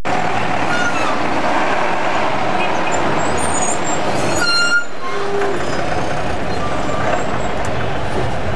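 Dense city bus and motor traffic running close by, heard from a taxi in the thick of it, with short horn toots at intervals and a stronger horn blast about four and a half seconds in.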